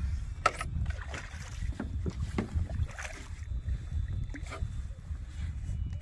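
Steady low rumble of wind on the microphone, with scattered short splashes and knocks as a hooked fish is grabbed at the waterline beside a small boat.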